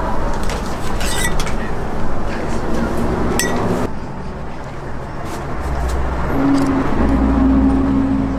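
Metal spatulas clinking and scraping against each other as they spread ice cream onto a thin waffle, with a few sharp clinks in the first half. After that a low steady hum runs under a constant background noise.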